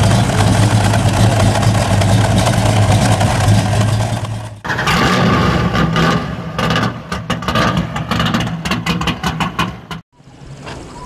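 American muscle car V8 engines. First a loud, steady deep rumble. Then, after an abrupt cut, an engine running choppily with rapid uneven pulses for about five seconds, and after another cut near the end, a quieter steady engine note.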